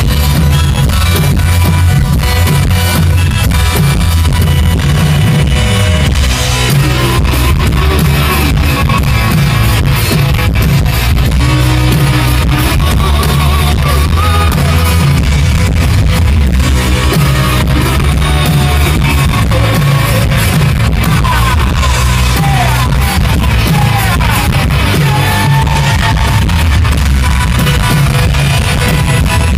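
Rock band playing loud and live through a stage PA: electric guitar, bass guitar and drum kit, without a break.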